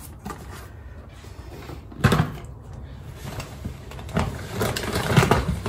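Shopping items being handled and set down on a table: one sharp knock about two seconds in, then a string of softer knocks and bumps near the end.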